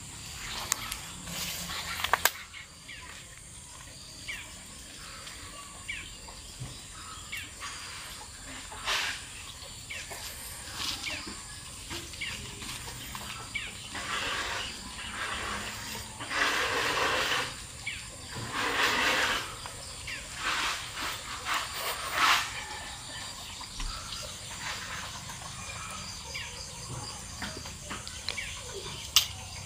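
Outdoor ambience with a steady high insect drone. There are a few sharp clicks, and a run of louder rustling swishes about halfway through.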